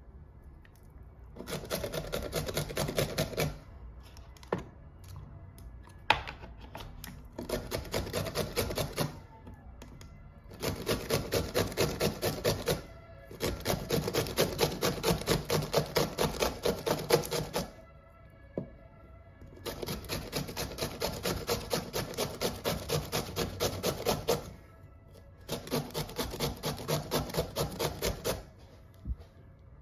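Beetroot being grated on a flat stainless-steel hand grater: runs of quick, rhythmic scraping strokes lasting a few seconds each, with short pauses between them.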